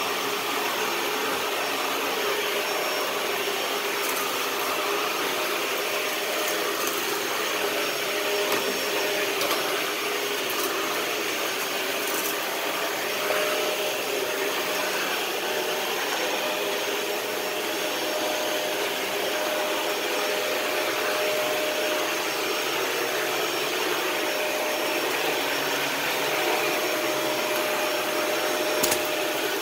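Dyson DC41 Animal Complete upright ball vacuum running steadily, a motor whine over a constant rush of airflow, with a few sharp clicks, one near the end.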